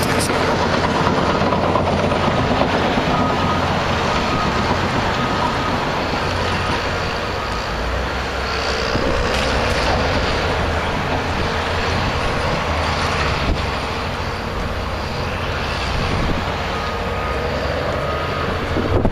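Tracked bulldozer's diesel engine running steadily as it works sand, with a faint steady whine over the engine noise.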